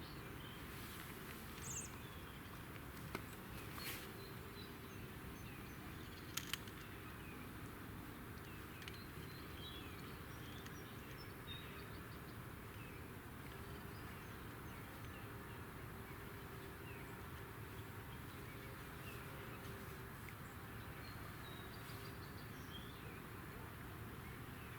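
Quiet outdoor ambience: a steady faint background hiss with scattered short, high bird chirps, and a few sharp clicks in the first seven seconds.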